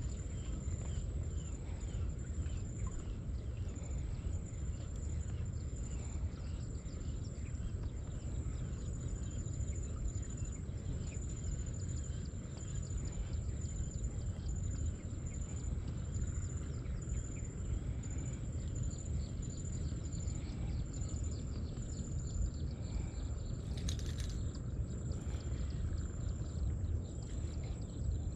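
Outdoor ambience: a steady low rumble of wind on the microphone, faint bird chirps, and a thin, steady high-pitched whine. A brief hiss about twenty-four seconds in.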